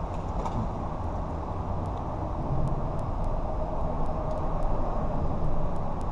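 Steady low rumble of distant road traffic, swelling a little from about two and a half seconds in, with a faint engine hum near the end.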